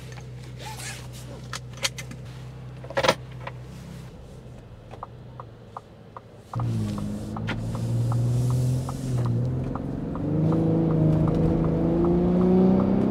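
Seatbelt being pulled across and latched, with a few light clicks and one sharp click about three seconds in. Then a regular ticking, and from about halfway the Gen 3 Ford F-150 Raptor's engine pulling away from a stop and accelerating, its pitch climbing, heard from inside the cab.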